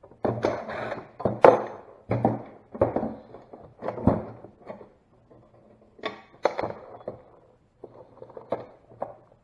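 Irregular knocks, clicks and clunks of hands working parts out of a car dash assembly, with a quieter stretch about five seconds in.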